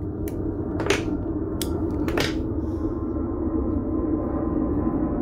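Sustained, gong-like ringing tones under four sharp metallic clicks in the first half, from wrenches on a nut being tightened on a threaded rod.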